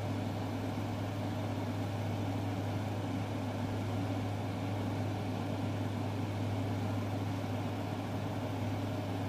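Steady low background hum with a faint even hiss, unchanging throughout.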